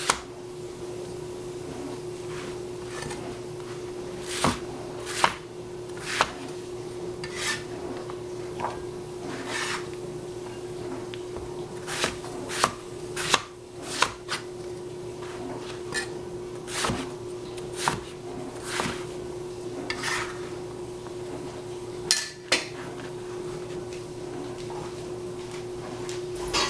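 Broad-bladed kitchen knife cutting through eggplant and striking a plastic cutting board, in irregular chops about once a second that stop a few seconds before the end. A steady low hum runs underneath.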